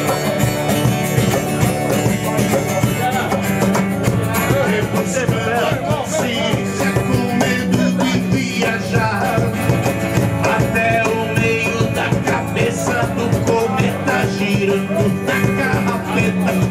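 Live acoustic music: a man singing in Portuguese to a strummed acoustic guitar.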